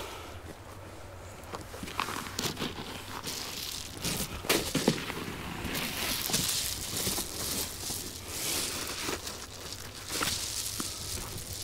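Footsteps and irregular crinkling and rustling of Reflectix foil-faced bubble insulation being handled, with a few sharper knocks about four and a half seconds in.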